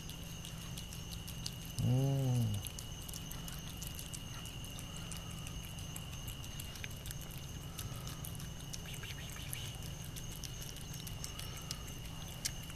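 A cat eating canned food from a plastic bowl, with faint small clicks and smacks from its chewing, over a steady high trill of night insects. About two seconds in there is a short, low hum from a man's voice.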